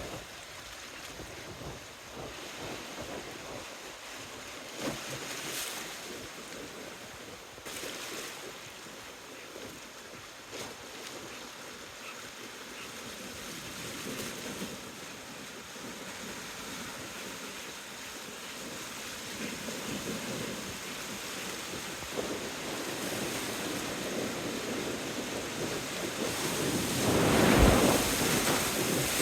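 Strong, gusty wind blowing over the microphone, rising to a loud buffeting gust near the end.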